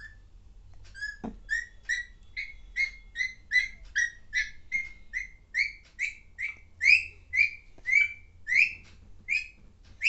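Young Alexandrine parakeet making a long series of short, sharp chirping calls, about two to three a second, starting about a second and a half in.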